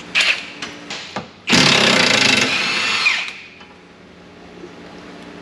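Cordless impact wrench run in one loud burst of about a second and a half, stopping abruptly, after a few light tool clicks.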